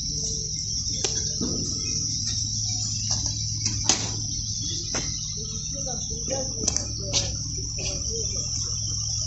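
Dry-dock shipyard ambience: a steady high hiss over a low hum, with scattered sharp knocks, the loudest about four seconds in.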